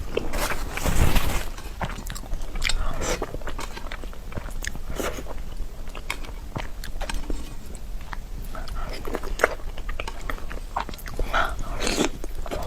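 Close-up mouth sounds of a person eating soft pig brain in chili oil: wet chewing with irregular small clicks and smacks, and a louder noisy rush about a second in.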